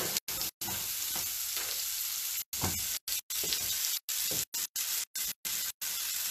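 Shell-on shrimp sizzling steadily in a hot ridged grill pan just off the burner, with a few light knocks of the pan. The sound cuts out briefly several times in audio dropouts.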